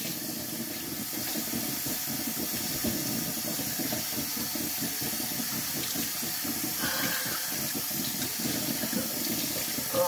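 Kitchen faucet running steadily, the water pouring over a person's head and hair and splashing into a stainless steel sink as shampoo is rinsed out.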